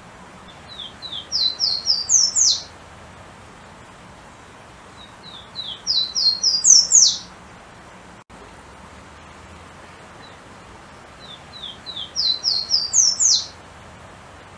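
Golden-crowned warbler (pula-pula) singing three songs, each a quick run of short notes stepping up in pitch and ending in a louder, high upslurred note, over a faint steady hiss.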